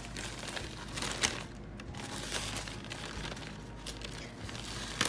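Plastic zip-top bag crinkling irregularly as a piece of chicken is turned and pressed in a coating of crushed Cool Ranch Doritos and bread crumbs inside it.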